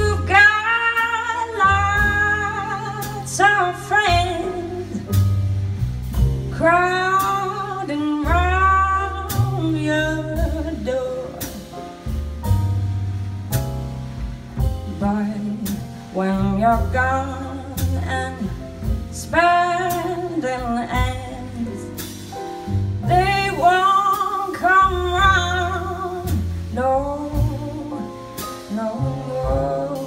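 Live slow jazz ballad: a woman sings a melodic line into a microphone over piano, plucked upright double bass and a drum kit's cymbals.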